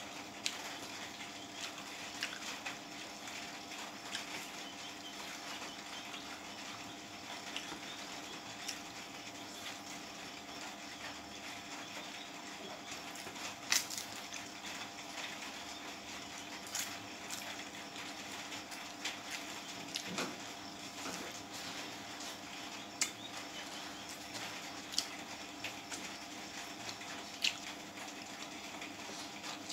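Close-up eating sounds: chewing and wet mouth noises from rice and chicken curry eaten by hand, with scattered sharp clicks, the loudest about halfway through, over a steady background hum.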